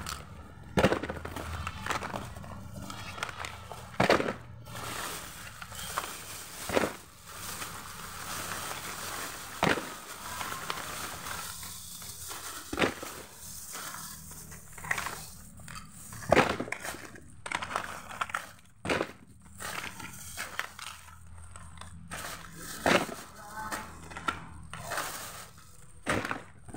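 Plastic bags rustling and crinkling while small cardboard perfume boxes are handled and set down on a hard tiled floor, giving an irregular string of sharp taps and knocks.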